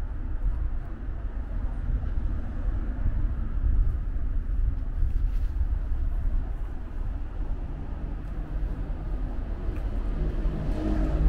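Steady low rumble of street traffic, with a car engine growing louder over the last few seconds as the car passes on the street ahead.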